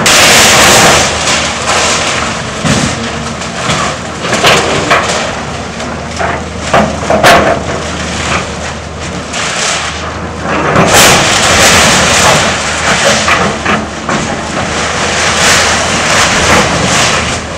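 Tracked excavator demolishing a building: its diesel engine runs steadily under loud, repeated crashes and scraping as walls and metal roofing break and fall.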